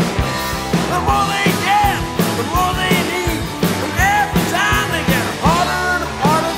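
Rock music: a steady drum beat under a lead line of bending, wavering notes.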